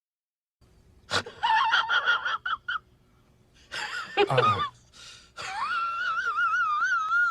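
High-pitched, squeaky wheezing sound effect in three parts: a run of short cries, a squeal that drops sharply in pitch, then one long wavering note.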